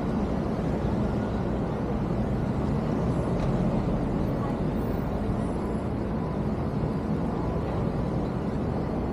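Street traffic in a city: a steady, low rumble of passing vehicles.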